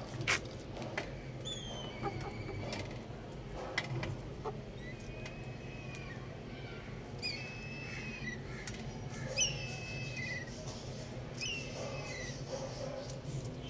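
Young chickens chirping: a series of short, high calls that fall in pitch, about eight through the stretch, with a few sharp clicks between them.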